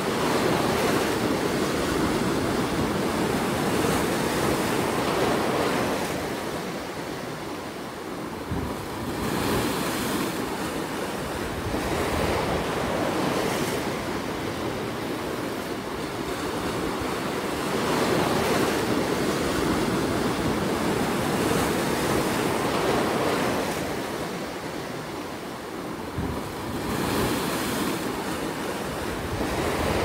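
Ocean surf breaking over and washing through shoreline rocks, a continuous rush that surges and ebbs every several seconds as each wave comes in and drains back.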